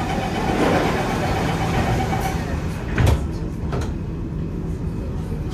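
Metro train running, a steady rumble with a faint whine that fades out about two seconds in. A sharp knock comes about three seconds in, followed by a weaker one.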